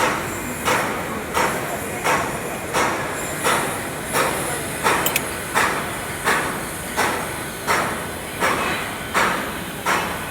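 A hammer striking metal at a steady, even pace, about three blows every two seconds.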